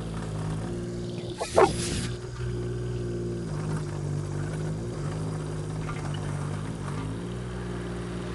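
Kubota KX019 mini-excavator's diesel engine running steadily, its pitch dipping and rising slightly with hydraulic load during demolition work. A single loud bang comes about one and a half seconds in.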